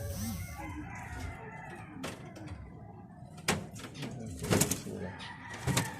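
A rooster crowing in the background, fading out in the first second, then a few sharp clicks and knocks, the loudest about three and a half seconds in, four and a half seconds in, and near the end.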